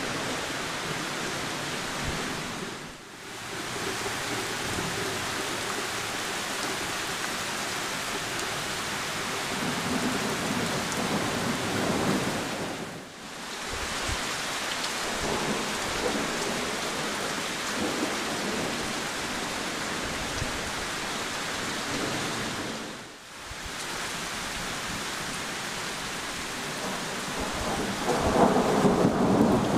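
Heavy rain falling steadily on leafy trees, a dense even hiss that dips briefly three times. Near the end a louder, deeper rumble of thunder swells in.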